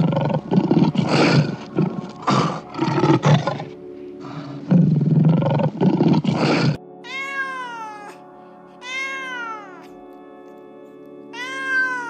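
A lion roaring in a run of loud, rough bursts for the first six and a half seconds. After an abrupt cut, a Scottish Fold cat meows three times, each meow rising then falling in pitch.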